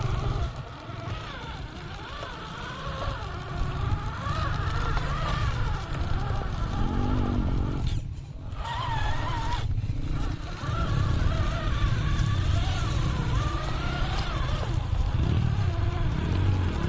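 RGT EX86190 RC crawler's electric motor and gearbox whining, the pitch rising and falling as the throttle is worked, over a low rumble. The whine cuts out briefly twice in the middle.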